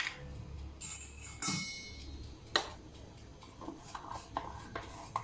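A spoon and containers clinking and tapping as baking powder is measured out, with a few sharp clinks and one brief ringing tone near the start.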